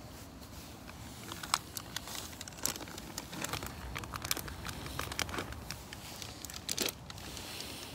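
Plastic packet crinkling as it is handled close by, with irregular sharp crackles; the loudest come about a second and a half in and near the end.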